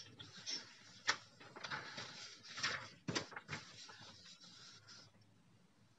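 A sheet of printer paper rustling and sliding over the table as it is shifted and something is slipped under it: a few short rustles over the first three and a half seconds, with one sharp tap about a second in.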